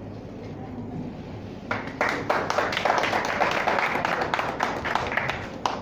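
A small group of people applauding, starting a little under two seconds in and dying away just before the end.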